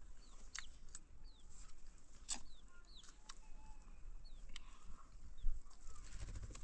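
Chickens calling: short, high chirps that fall in pitch, repeated throughout, with a few sharp knocks in between.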